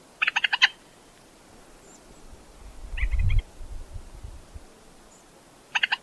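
Gough moorhen calling in short bursts of rapid, clicking notes: one just after the start, a fainter one about three seconds in, and another near the end. A low rumble sits under the middle burst.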